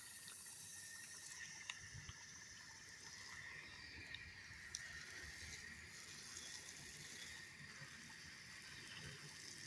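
Faint, steady outdoor background hiss, with a few small ticks.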